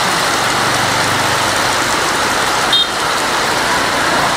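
Heavy rain pouring down on a road and roofs, with small motorbike engines running past in the first couple of seconds and again near the end.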